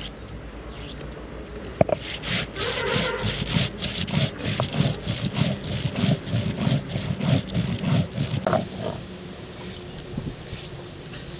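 Stone roller rubbed back and forth over a flat grinding stone (sil-batta), crushing cumin and coriander seeds into masala paste. A quick run of scraping strokes, about four a second, starts about two seconds in and stops about nine seconds in.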